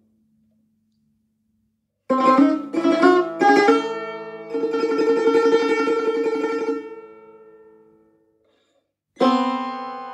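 Persian tar played solo in G quarter-flat. After a short silence come three sharp plucked notes, then a fast tremolo that rings out and fades, and near the end a single strong pluck left to ring.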